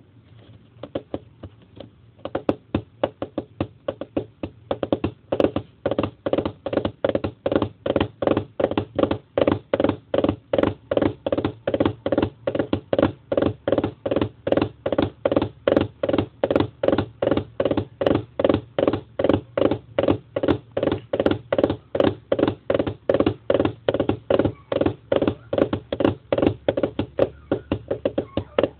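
Foley imitation of a horse galloping: a fast, regular run of knocks standing in for hoofbeats, about four a second. It begins with a few scattered knocks and settles into the steady galloping rhythm after about two seconds.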